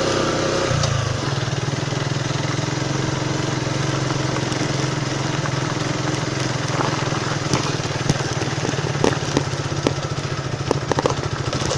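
Motorcycle engine running steadily while riding over a rough hill track, its note dropping lower about a second in. Scattered sharp clicks and knocks come in the second half.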